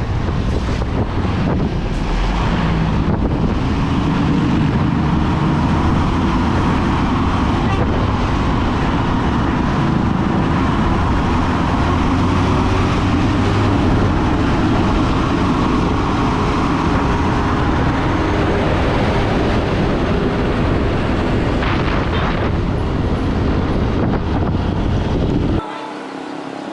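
Bus under way: engine running under heavy road and wind noise, its pitch rising slowly and then easing back. The sound cuts off abruptly near the end.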